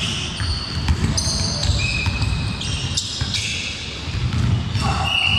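Basketball dribbled on a hardwood gym floor, with sneakers squeaking in many short, high squeaks as players move, in a large echoing hall.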